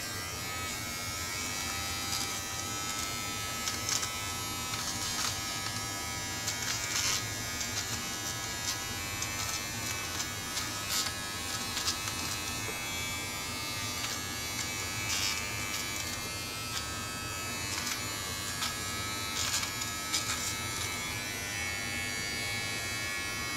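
Braun MGK3220 all-in-one trimmer running with its nose-trimmer head: a steady electric buzz with scattered short crackles as it works inside the nostrils. It cuts off at the very end.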